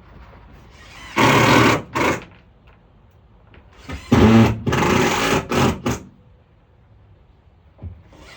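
Power drill running in short bursts on screws in a van's plywood subfloor: one burst about a second in, then several from about four to six seconds.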